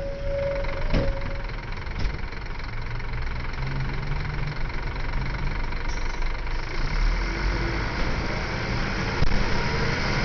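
Scania L94UB city bus's rear-mounted diesel engine running steadily, with a sharp click about a second in and another about two seconds in.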